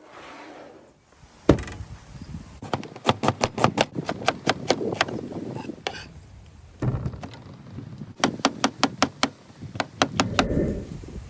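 Rapid runs of sharp knocks, about four or five a second, in two bursts, with one louder single knock about a second and a half in.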